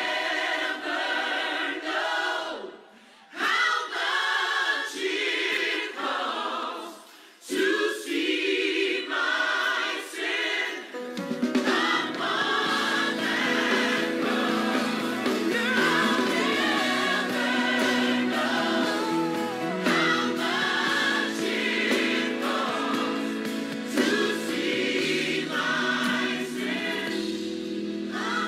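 Recorded gospel choir singing with accompaniment. Twice in the first eight seconds it drops briefly, and about eleven seconds in a fuller low accompaniment enters.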